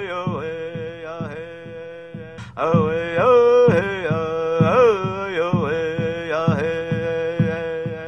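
Music: a chanting voice over a steady drumbeat of two to three strokes a second, a Hopi chant. The chant breaks off briefly about two and a half seconds in, then resumes.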